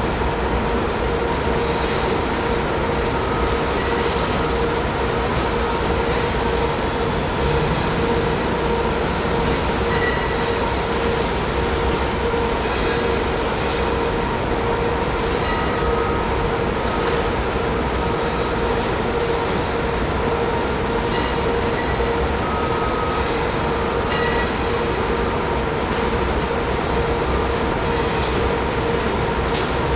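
Factory machinery running continuously: a steady mechanical din with a constant hum and scattered metallic clicks and knocks.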